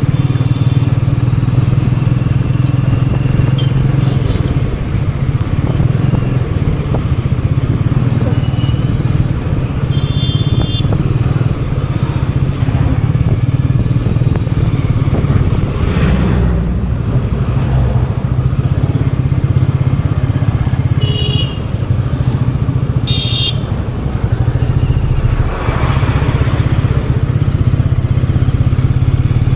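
Royal Enfield Meteor 350's single-cylinder engine running steadily while riding at an easy pace in city traffic. A few short high-pitched tones come through about ten, twenty-one and twenty-three seconds in.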